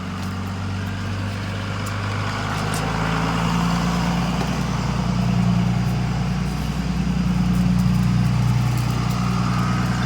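A motor vehicle's engine running at low speed, a steady low hum that shifts in pitch and grows louder partway through.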